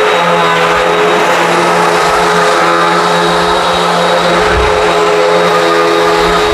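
Hoover WindTunnel High Performance upright vacuum cleaner running steadily, vacuuming a rug, with its motor's steady hum and whine over the rush of air.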